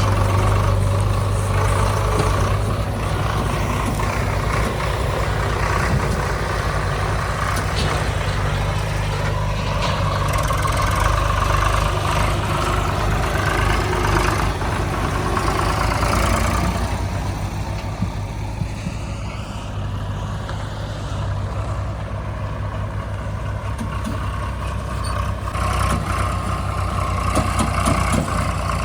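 Diesel engine of a JCB 3DX backhoe loader running steadily as it works, easing off about two-thirds of the way through and picking up again near the end.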